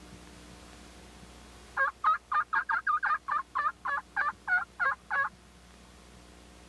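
A quick run of about a dozen turkey yelps, starting about two seconds in and lasting about three and a half seconds.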